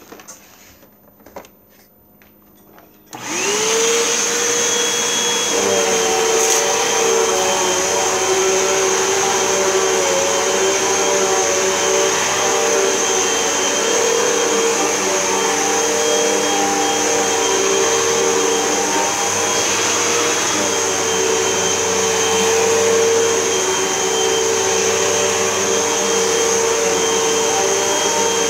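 Vacuum cleaner switched on about three seconds in, its motor whine rising quickly to speed, then running steadily while vacuuming a rug.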